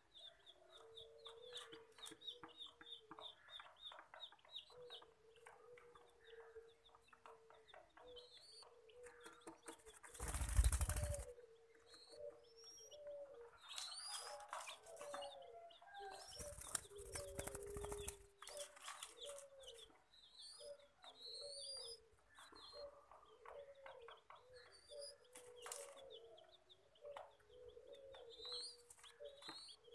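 Faint bird calls: low, short clucking notes repeating a few times a second, with thin high chirps over them. Two loud bursts of rustling, one about ten seconds in and the other around seventeen seconds, are the loudest sounds.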